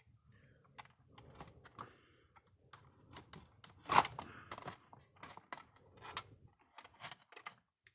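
Irregular light clicks and taps of hands working the wiring inside an electric fence energizer, pulling a wire connector off a capacitor, with one sharper click about four seconds in.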